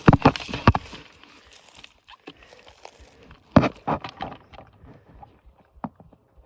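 Footsteps crunching through dry leaves and brush in the woods, in two short bursts, with a single twig-like snap near the end.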